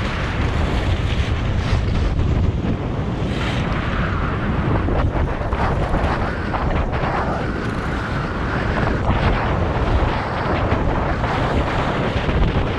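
Wind rushing over the microphone while skiing downhill, with the steady hiss and scrape of skis sliding on groomed snow; the scrape grows briefly louder a few times in the turns.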